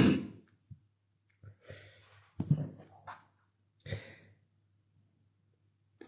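A man sighing and breathing into a close microphone, a few short breaths and throat sounds in the first four seconds. He is still ill with COVID and coughing.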